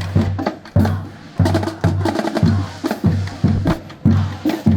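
Marching band drumline playing a cadence: a bass drum on a steady beat, about one and a half strikes a second, with sharp snare drum strokes between.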